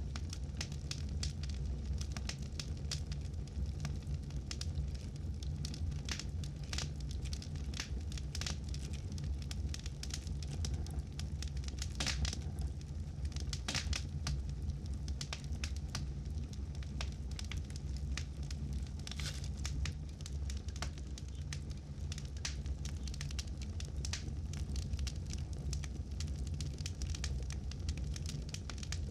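Campfire burning, with a steady low rumble of flames and frequent irregular crackles and pops of burning wood.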